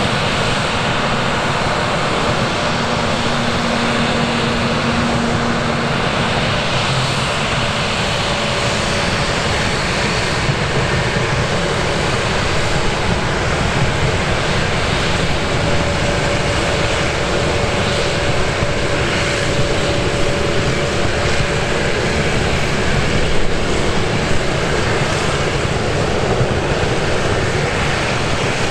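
Airliner jet engines running steadily under a loud, even rush of noise, with wind buffeting the microphone.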